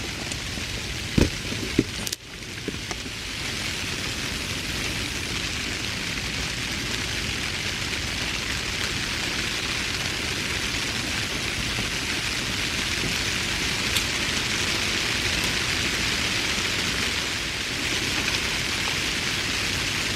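Steady, even hiss like rain falling, with a couple of light clicks in the first two seconds and a brief dropout about two seconds in.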